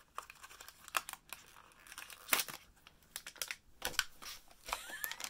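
Small cardboard mystery pin box and its packaging being opened by hand: irregular crinkling, tearing and tapping crackles, with a couple of louder snaps about two and four seconds in.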